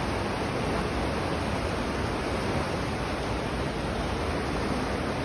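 Steady rush of falling water, an even roar with no breaks.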